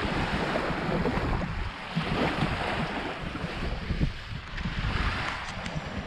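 Wind buffeting the microphone with an irregular low rumble, over the steady wash of small waves breaking on the beach, which swells and falls back.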